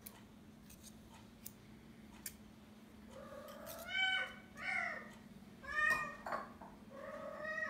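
Domestic cat meowing repeatedly, about five meows starting a little past three seconds in, each shorter than a second. A few light clicks come before them.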